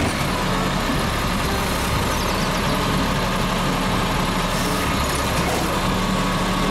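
Diesel engine of an automated side-loader garbage truck running steadily while its side arm lifts a wheeled trash cart.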